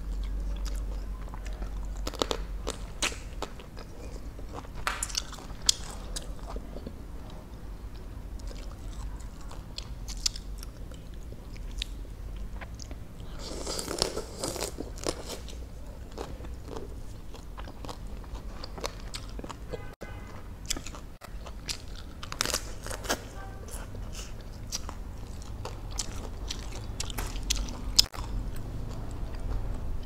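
Close-miked biting and chewing of cooked crab legs and shell, with scattered sharp crunches and clicks. Louder bursts of eating noise come about 14 and 23 seconds in.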